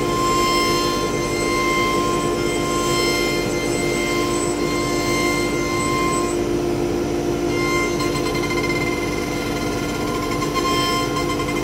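The two automatic-tool-changer spindles of a dual-spindle CNC router run together while cutting into a board. The sound is a steady high whine over a lower machine hum; the highest tone drops away about halfway through and comes back near the end.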